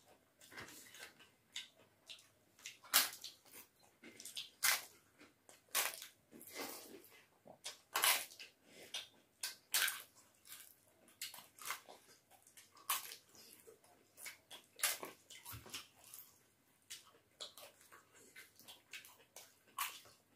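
Close-up eating sounds: wet chewing and mouth smacking of hand-mixed rice and dal, with crisp bites of papad, coming as short, irregular clicks and crackles.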